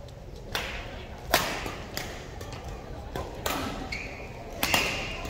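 A rally in a racket-sport doubles match: sharp racket strikes come about every half second to a second, and there are a couple of short squeaks near the end.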